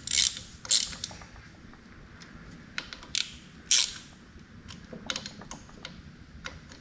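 Ratchet wrench clicking in short strokes with pauses between them, as a metric bolt at the belt pulleys of a CAT generator's diesel engine is cranked down.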